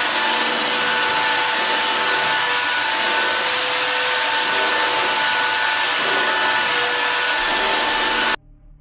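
Handheld electric sander running steadily on wooden floorboards: a constant motor whine over a loud sanding hiss. It cuts off suddenly near the end.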